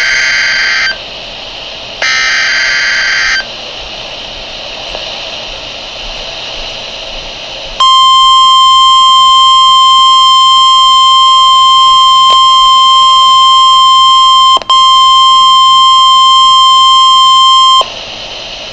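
Emergency Alert System header for a new National Weather Service warning, received over a radio: two short screeching digital data bursts about a second apart, then radio hiss, then the weather-radio alarm tone held at one steady pitch for about ten seconds and broken once, briefly.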